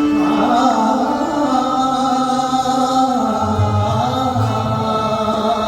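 Marathi devotional abhang: a male singer holds long, gliding notes without words over steady instrumental accompaniment. Deep drum strokes, typical of a pakhawaj, come in about three and a half seconds in.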